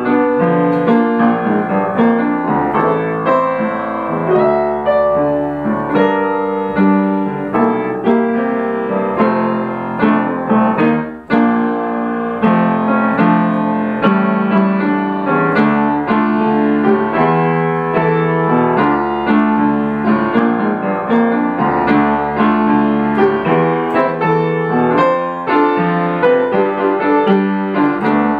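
Piano music: a steady, unbroken flow of notes with no singing, which dips briefly about eleven seconds in.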